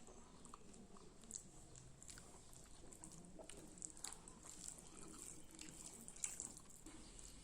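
Quiet close-up eating sounds: chewing with scattered soft, wet mouth clicks and smacks at an irregular pace, over a faint steady high hiss.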